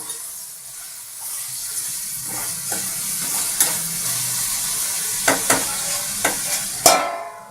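Vegetables and paneer sizzling in hot oil in a pan while being stirred with a spoon, with several sharp knocks of the spoon against the pan in the second half. The sizzle fades away near the end.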